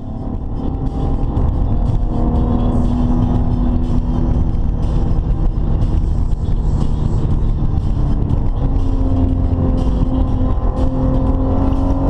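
Maserati Ghibli cruising, heard from inside the cabin: a steady engine tone over heavy low road and tyre rumble, fading up over the first second or so.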